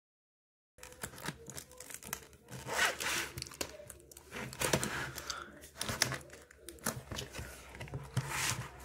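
Cardboard box of pearl clay being torn open by hand: tearing and crinkling of the packaging with small clicks and knocks, in several short bursts, starting about a second in.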